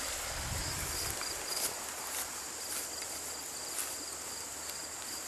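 Outdoor ambience: a steady hiss with insects trilling faintly at a high pitch, a few light rustles, and a low rumble in the first second or so.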